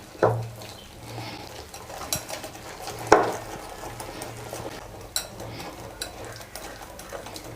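Bajji batter of gram flour and rice flour being stirred with water in a mixing bowl: soft scraping and sloshing, with two sharper knocks against the bowl, one about a quarter second in and one about three seconds in. A steady low hum runs underneath.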